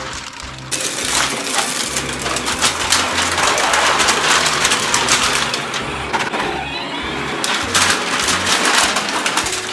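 Plastic containers of coloured water cracking and crunching under the wheels of a ride-on toy tractor, with splashing water, starting about a second in, a dense run of sharp cracks. Background music with a bass line underneath.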